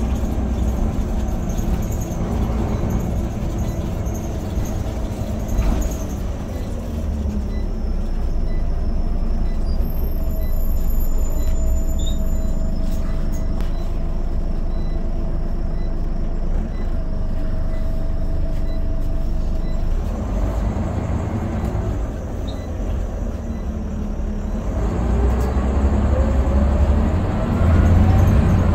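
Scania OmniCity bus heard from inside the saloon: the diesel engine and drivetrain running with road rumble while under way. Near the end the engine note rises and grows louder as the bus accelerates.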